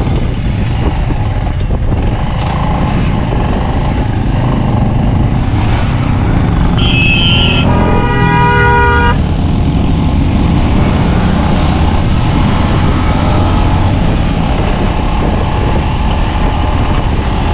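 Steady riding noise of a motorcycle on the move: engine and wind on the microphone. About seven seconds in, a vehicle horn honks for about two seconds.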